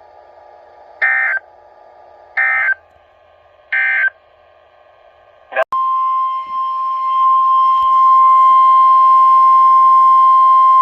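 Three short bursts of EAS/SAME digital data warble, the end-of-message code, about a second and a half apart. About halfway through, a steady NOAA Weather Radio warning alarm tone starts on one pitch near 1 kHz and gets louder a couple of seconds later: the signal that a new alert is coming.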